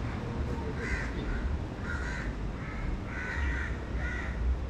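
Crows cawing in a run of short, repeated calls, about one or two a second, over a steady low rumble.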